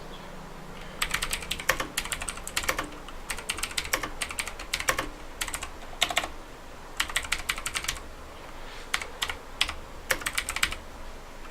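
CyberPowerPC Skorpion K2 RGB mechanical keyboard being typed on: keys clacking in quick runs of keystrokes as a sentence is typed, with short pauses between the runs.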